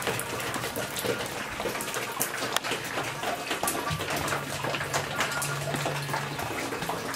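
Steady hiss of water with many small patters and crackles through it. A low steady hum joins about four seconds in and stops shortly before the end.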